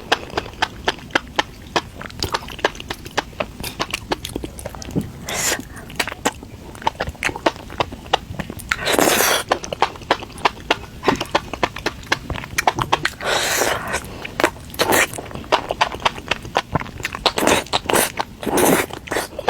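Close-miked mukbang eating sounds: rapid chewing and biting with many sharp wet clicks, and several longer crunchy bursts.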